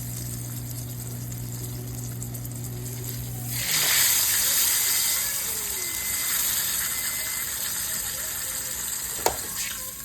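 A low steady hum stops about a third of the way in, and a kitchen tap starts running, a loud steady gush of water. A single sharp click comes near the end.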